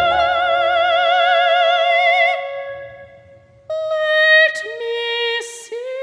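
Soprano voice holding a long high note with a wide vibrato, fading away about two and a half seconds in. After a short pause, new held notes begin about a second later.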